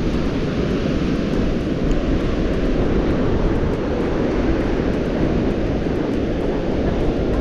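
Strong gusting wind buffeting the microphone in a steady low rumble, with the wash of surf from a big swell.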